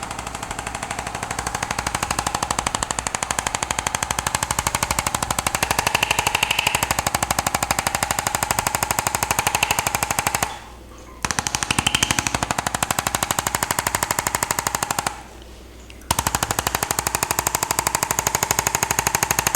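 Electric percussion massager running, a fast, even hammering with a steady motor whine underneath; it stops twice for about a second, once about halfway through and again near three-quarters, and starts again each time.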